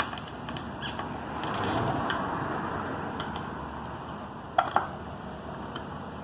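Handling noise of hands at work on electrical connections: light scattered clicks and rustling, a brief louder scrape near two seconds in, and two sharp clicks in quick succession about four and a half seconds in.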